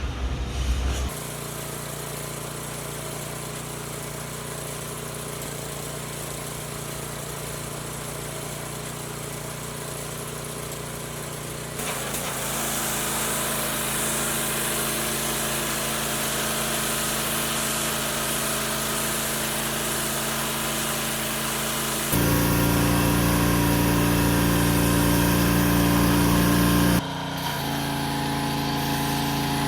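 Pressure washer running steadily. About twelve seconds in, the high-pressure water jet starts striking the concrete and adds a loud hiss over the machine's hum. The sound grows louder later on, then changes near the end as foam spraying begins.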